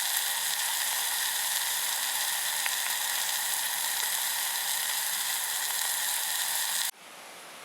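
Food frying with a steady sizzle. About seven seconds in it cuts off abruptly, giving way to a quieter, even hiss.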